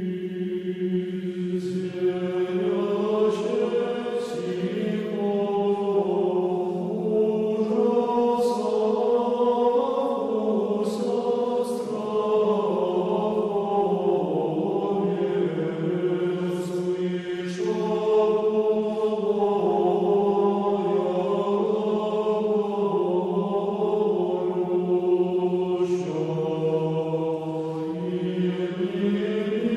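Orthodox church choir chanting slowly, long held notes moving over a steady low drone.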